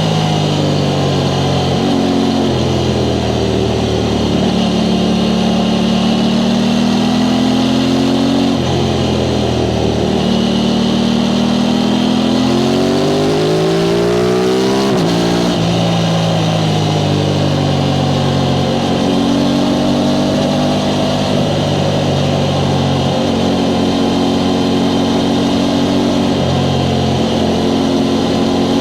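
Aprilia Tuono 660 Factory's parallel-twin engine through its stock exhaust, heard from the rider's seat while riding. The revs hold fairly steady, dip about a third of the way in, climb steadily under acceleration for several seconds past the middle, then drop away off the throttle and settle into a steady cruise.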